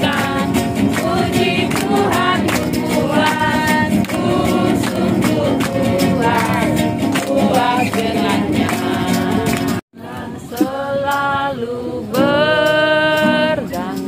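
A group of people singing a worship song together, with hands clapping along. About ten seconds in the sound breaks off briefly, then the singing resumes with a few long held notes.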